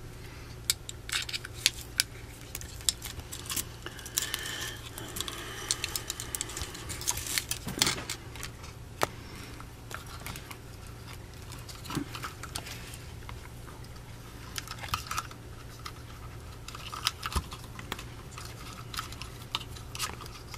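Small clicks and rattles of wires, plug connectors and chassis parts being handled on an RC crawler build, over a steady low hum.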